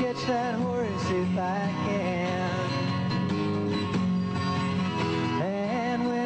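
Live twelve-string guitar picking a melody with sliding, wavering notes over steady low ringing strings.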